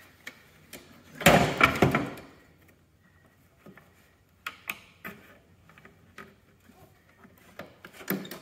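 Steel seat pan of a Cub Cadet 2084 lawn tractor tipped up on its hinge: a clattering metal rattle about a second in, lasting about a second. Then scattered small clicks of a screwdriver prying at the plastic seat-switch wiring connector.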